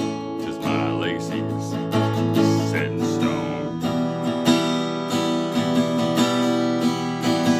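Acoustic guitar strumming in the instrumental ending of a song, with a few sliding notes near the start.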